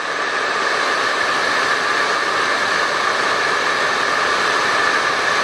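Hairdryer running and blowing onto a spinning fidget spinner held on the fingers: a steady rush of air with a constant high whine from the motor and fan.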